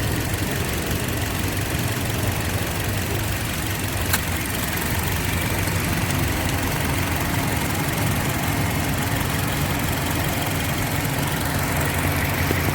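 A 2007 Toyota Yaris four-cylinder petrol engine idling steadily, now running on all four cylinders without misfire after a faulty ignition coil was replaced. There is a single sharp click about four seconds in.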